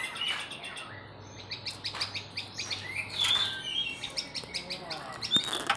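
Oriental magpie-robin (kacer) singing: a run of quick chirps and short whistled notes.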